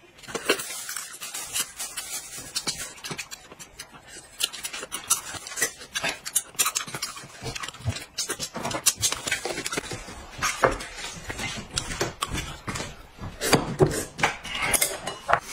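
Chopsticks clicking and scraping against an instant-noodle cup and ceramic bowls as noodles are mixed and eaten, with mouth and slurping noises. The clicks come in quick irregular runs that get busier and louder near the end.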